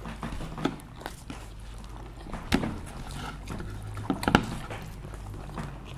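People eating: chewing and mouth noises with a few sharp clicks, the loudest about two and a half seconds in and two close together a little after four seconds, over a low steady hum.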